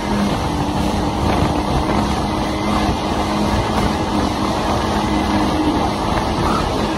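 Jet ski engine running steadily at cruising speed, a constant drone under a steady rush of wind and water noise.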